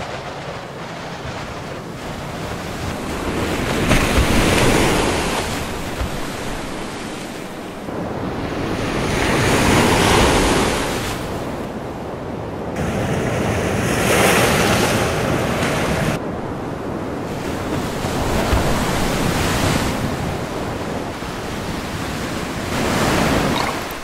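Heavy storm surf breaking and surging against a harbour, with a loud crash about every four to six seconds and wind buffeting the microphone between crashes.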